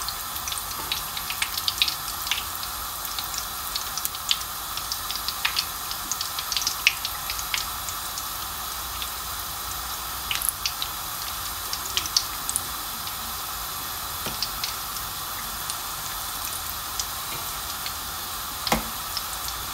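Breadcrumb-coated tuna fish balls deep-frying in hot oil: a steady sizzle with scattered crackles and pops.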